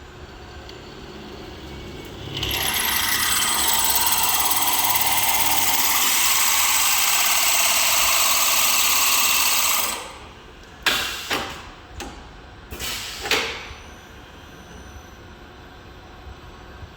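Automatic multi-spindle pipe drilling machine running, its drills cutting into a pipe with a loud, steady, hissing grind for about eight seconds, then several short, sharp bursts.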